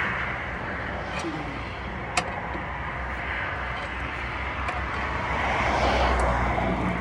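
Cars passing on the road, a broad noise of traffic that swells and fades, with one light click about two seconds in.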